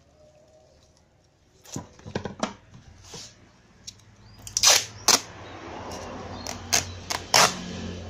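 Clear plastic packing tape being ripped off its roll in several loud, harsh strips and pressed onto a corrugated cardboard box, with a few knocks from handling the box about two seconds in.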